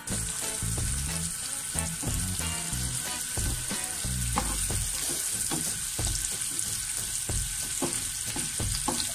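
Sliced red onion and garlic sizzling as they fry in hot oil in a nonstick frying pan, with a spatula stirring and scraping them now and then. The hiss starts and stops abruptly.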